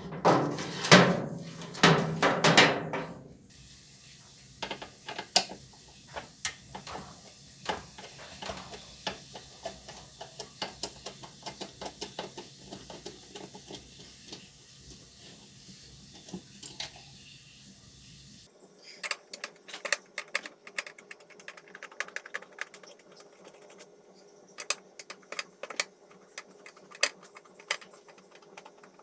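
Irregular light clicks, taps and clinks, as of small metal parts and hand tools being handled during the disassembly of a washing machine. A louder burst of noise fills the first three seconds.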